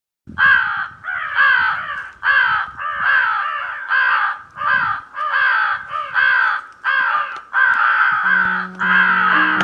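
Crows cawing in a rapid, unbroken series of harsh caws, about two a second, starting abruptly. Background music comes in near the end.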